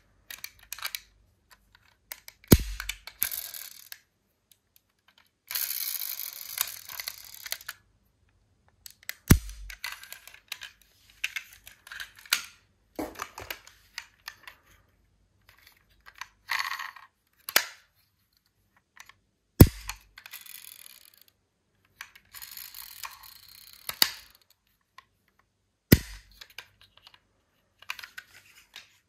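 Small die-cast metal toy cars being handled, with light clinking and clattering, stretches of scraping, and four sharp knocks spaced six to ten seconds apart.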